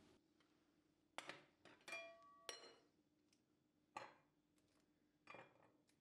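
Quiet glass clinks and taps as chocolate-coated date bars are set into a glass bowl, about six in a few seconds, two of them ringing briefly.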